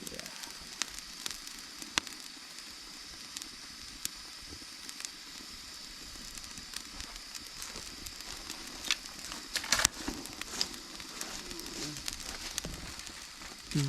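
Campfire burning: a steady hiss with scattered sharp crackles and pops, and a quick run of louder pops about nine to ten seconds in.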